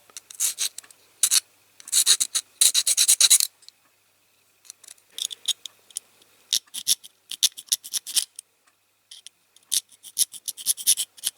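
Hand file rasping on a small metal pin of a diecast toy, in several runs of quick short strokes with brief pauses between.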